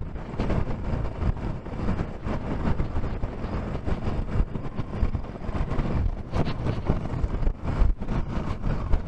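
Wind buffeting the microphone in gusts: a rumbling, fluctuating rush with no steady engine tone.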